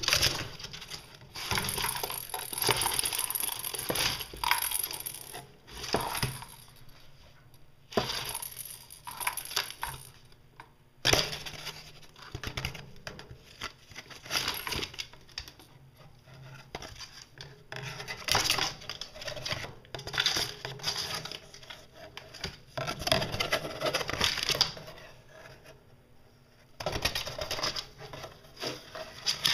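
Intermittent cardboard rustling, scraping and clicking as a Netherland dwarf rabbit nibbles and pushes at a cardboard tube and a cardboard box, in irregular bursts with short pauses.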